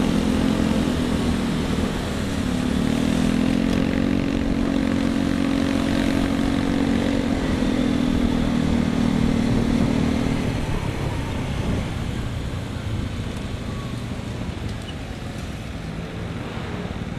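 Motorcycle engine running while riding, over wind and road noise. The engine note dips briefly about two seconds in, holds steady, then fades about ten seconds in, leaving mostly wind and road noise.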